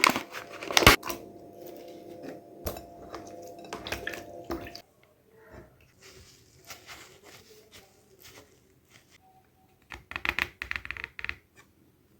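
Kitchen food-preparation handling sounds: clicks, taps and wet squishing noises. A steady hum runs under them for the first few seconds and cuts off suddenly about five seconds in, and a quick run of clicks comes near the end.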